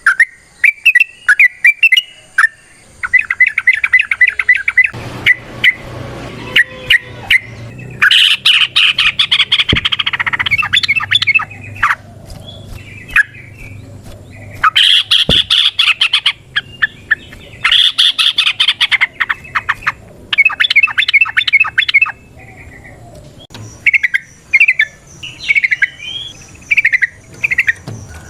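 Yellow-vented bulbul (trucukan) singing its long rapid 'ropel' song: bursts of fast bubbling notes, several of them dense and loud, with separate short chirped notes near the end.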